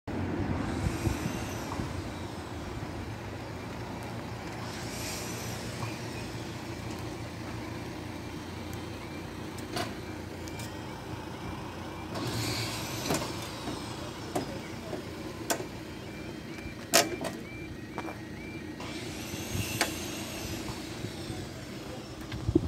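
Level crossing warning alarm sounding as a faint high tone repeating about twice a second while the barriers come down, over the noise of road traffic passing and waiting. There are several sharp knocks, the loudest near the end.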